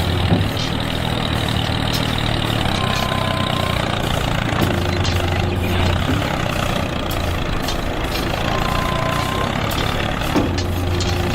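Steady engine-like mechanical running noise, with a low hum that swells and fades about every five to six seconds and a faint short high tone twice.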